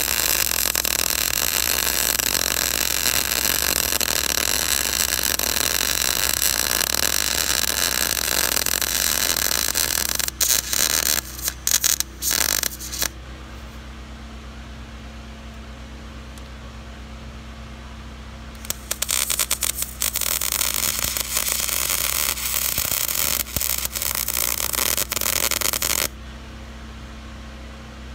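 MIG welding arc from a Lincoln 140 wire-feed welder, a steady sizzling hiss for about ten seconds that breaks into a few short bursts. After a pause the arc starts again for about seven seconds, with brief breaks. A low steady hum is heard in the pauses.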